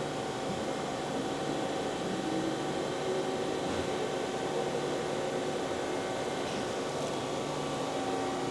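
Mitsubishi RB32 CNC cylindrical grinder running: a steady machine hum and whir with several steady tones through it.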